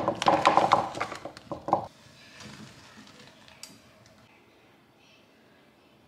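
A plastic bag of fresh cheese-filled pasta balls tipped out into a non-stick frying pan: about two seconds of dense crinkling and tapping as the balls drop in. After that only faint clinks are heard.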